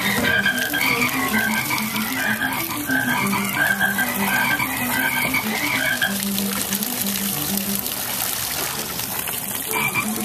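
Frog croaking sound effects from the water-shooting game's Lego frog targets: a steady run of short croaks, about two a second, shifting in pitch from one croak to the next.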